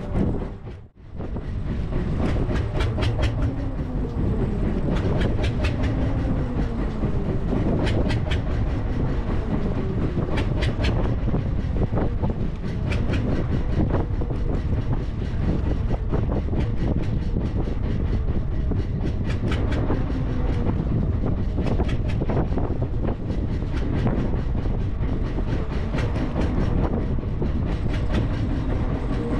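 Small fishing boat at sea: a loud, steady rumble with many irregular clicks and rattles, and a brief dip about a second in.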